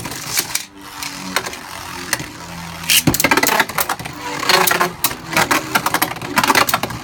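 Two Beyblade Burst spinning tops, Vise Leopard and Blast Jinnius, whirring in a plastic stadium with a steady hum. Repeated sharp clacks and scrapes come as they strike each other, thickest in the second half.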